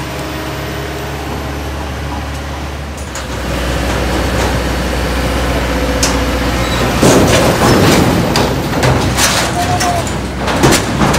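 Heavy truck's diesel engine running under load, growing louder about three seconds in, with a stretch of clattering and sharp knocks through the second half.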